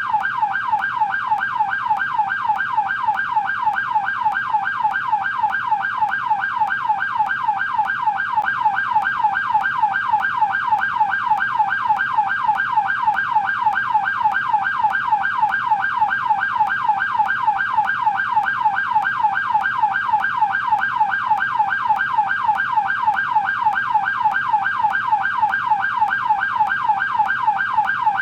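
American police car siren in yelp mode: a fast, steady warble, the pitch sweeping up and down several times a second without a break.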